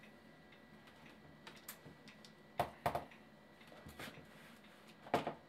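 Scattered clicks and light knocks of hands handling a Compaq Presario 2200 desktop's case, gripping its plastic front bezel. A few soft clicks come early, louder knocks around halfway, and the loudest knock near the end.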